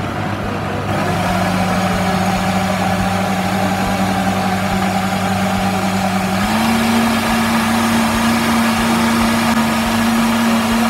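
NutriBullet full-size blender running at speed, blending banana, orange, leafy greens and water into a smoothie. The steady motor hum dips slightly in pitch about a second in and steps up a little just past halfway.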